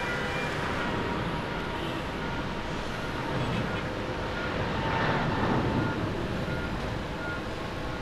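Jet engines of an All Nippon Airways Boeing 777-381 on its takeoff roll: a steady rushing noise with faint whining tones, swelling briefly about five seconds in.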